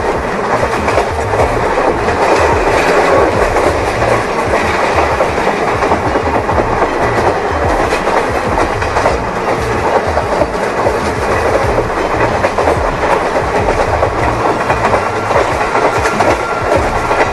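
Train running along the track, its wheels clattering steadily over the rails.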